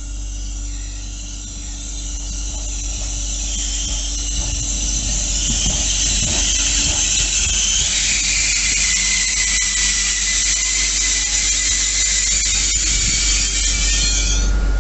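Brakes of an SNCF X 76500 (AGC) multiple unit squealing as it slows into the platform. Several high, shrill tones grow louder over the first half and stop sharply just before the end as the train comes to a halt, over a steady low rumble.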